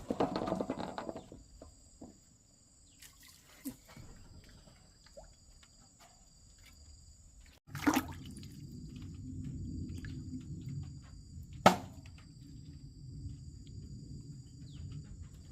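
Water splashing at the start, then quieter dripping and trickling with small ticks. After a break, steady low water noise runs on, with two sharp knocks.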